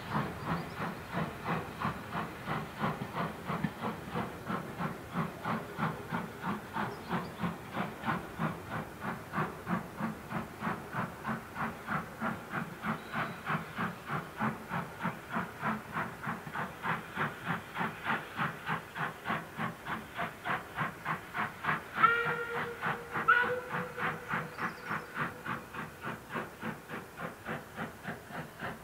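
Caledonian Railway steam locomotive pulling away, its exhaust beating steadily at about two to three beats a second and fading near the end. The whistle sounds twice in short blasts about three quarters of the way through.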